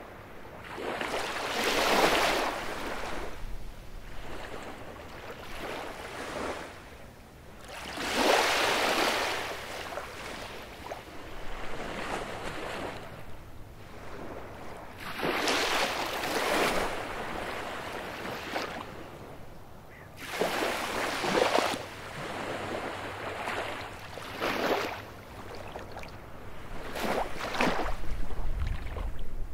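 Baltic Sea waves breaking on a beach: six surges of surf, one every three to six seconds, each swelling and washing out, with a low rumble near the end.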